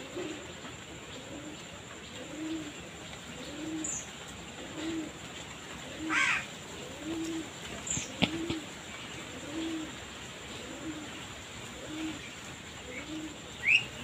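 A bird cooing steadily, one low coo about every second. A short higher call a little past the middle and a sharp click just after it.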